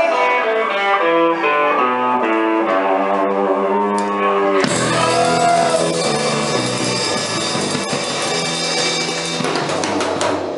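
Live rock band: an electric guitar plays a stepping run of single notes, then about four and a half seconds in the drum kit, cymbals and bass come in together and the full band plays on, with a quick flurry of drum and cymbal hits near the end.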